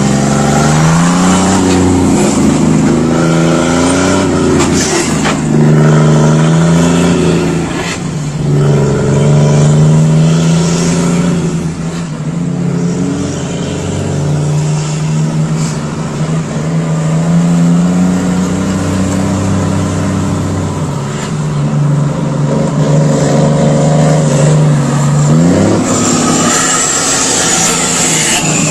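Scania truck diesel engines revving hard through the exhaust. The engine note climbs and drops again and again as the throttle is blipped.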